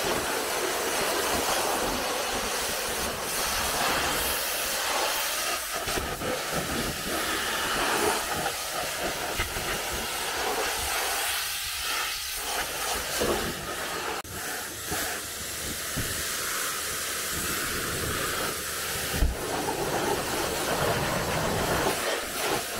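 High-pressure washer jet spraying water onto a car's wheels and body panels, rinsing off snow foam: a steady hiss that swells and dips as the spray moves. A single sharp knock about nineteen seconds in.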